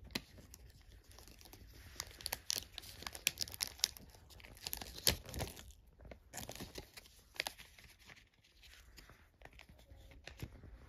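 Foil wrapper of a Panini Illusions trading-card pack crinkling and crackling as it is handled and the cards are pulled out of it, in irregular sharp crackles that are busiest in the first half.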